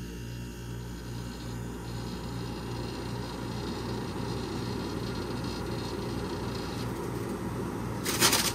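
Vintage room air conditioner running just after being switched on: a steady electrical hum from its motor under a wash of fan noise. Near the end comes a brief, loud burst of noise.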